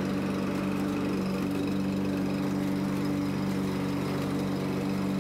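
Toro walk-behind lawn mower's gas engine running steadily at an even speed.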